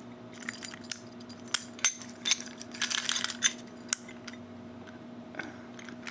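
Metal clicks and clinks of a heavy Medeco padlock and its removable cylinder being handled and worked back into the lock body, a quick run of sharp clicks for the first few seconds, then a pause and a few more near the end.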